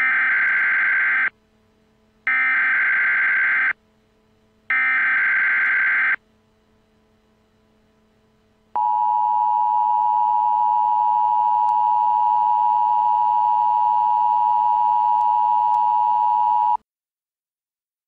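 Emergency Alert System SAME header: three bursts of digital data tones, each about a second and a half long, followed by the steady two-tone EAS attention signal held about eight seconds, which then cuts off. It marks the start of a new alert.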